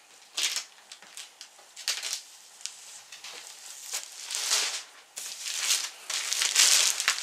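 A knife slitting the packing tape and cardboard flaps of a box in short scraping strokes, then a plastic bag crinkling as it is pulled out of the box. The crinkling is longer and louder in the second half.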